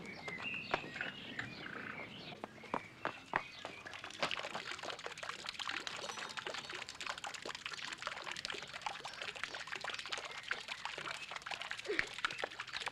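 Small garden fountain jet splashing and trickling back into its basin, a dense patter of drops that grows thicker about four seconds in.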